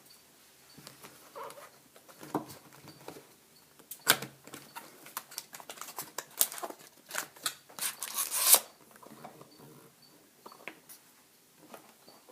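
A cardboard mini box of hockey card packs being opened and its foil packs handled by hand: irregular crackles, taps and rustles, busiest in the middle and loudest about eight and a half seconds in.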